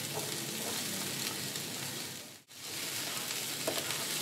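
Diced onions sizzling in hot oil in a non-stick frying pan, a steady hiss that cuts out briefly about halfway through.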